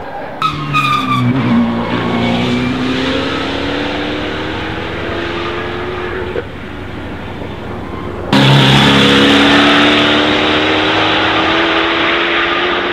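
Mercedes-AMG GT Track Series race car's 4.0-litre twin-turbo V8 accelerating hard, its note climbing steadily in pitch. About two-thirds of the way through it suddenly gets louder and climbs again.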